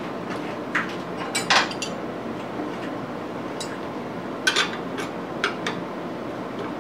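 Scattered metallic clicks and clinks of an Allen key on the steel screws and bracket of a DRO head mount as it is adjusted and tightened, the loudest about a second and a half in and again near the middle. A steady low room hum underneath.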